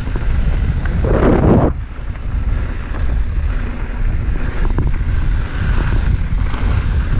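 Wind buffeting the microphone of a camera on a moving mountain bike, over the rumble of tyres rolling on a dirt trail, with a louder rush of noise about a second in.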